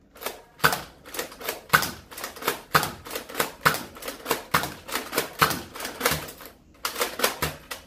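Nerf blaster being primed and fired over and over to empty it: a run of sharp plastic clacks and snaps, about three a second, with a brief pause near the end.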